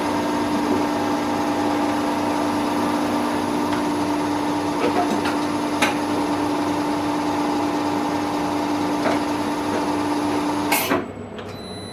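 Milling machine with a four-insert cutter head dry-cutting the edge off a 1030 steel billet, a steady machining hum with a held tone. Near the end there is a sharp clack and the sound abruptly drops much quieter.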